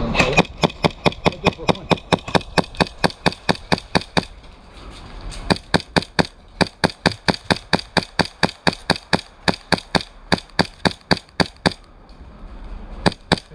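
Airsoft gun firing rapid single shots at about four to five a second, in strings with a short break about four seconds in and another near the end: suppressing fire.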